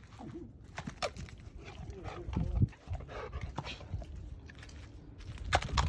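A dog's soft sounds as it moves about, with scattered sharp clicks and light knocks.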